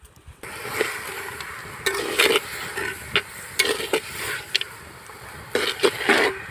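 Pork curry being stirred in a clay pot over a wood fire: irregular scraping strokes of the stirring tool against the pot over a steady sizzle from the heating meat and spices.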